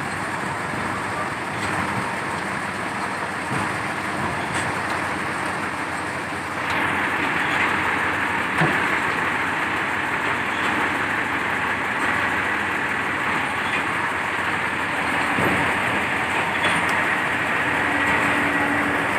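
Crane engine running steadily, growing louder about six and a half seconds in.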